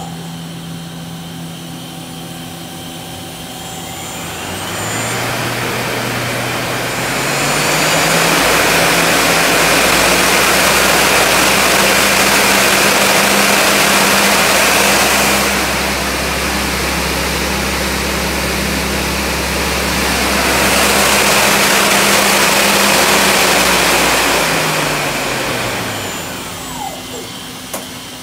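Spindle of a Mazak Quick Turn Nexus 350-II MSY CNC turning center spinning its three-jaw Kitagawa chuck. The drive whine rises in pitch as the spindle spins up a few seconds in, then holds steady under a loud rushing whir from the spinning chuck. The whir eases for a few seconds midway and comes back. Near the end the whine falls as the spindle winds down to a stop.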